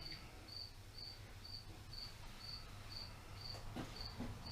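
A cricket chirping steadily, short high chirps about twice a second, over a low steady hum. A couple of faint knocks come near the end.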